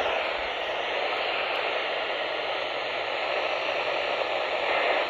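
Steady hiss of radio static from a weather radio receiver with no broadcast voice on it.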